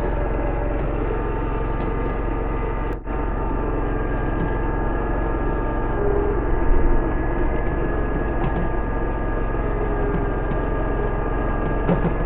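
2005 Walker GHS MT riding mower's engine running steadily under mowing load, with its blade deck cutting, briefly dropping out about three seconds in.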